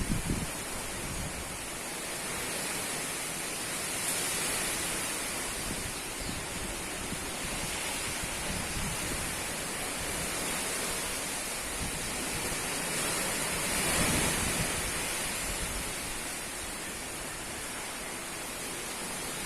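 Strong wind blowing in a steady rush, with gusts swelling louder about four seconds in and again around fourteen seconds.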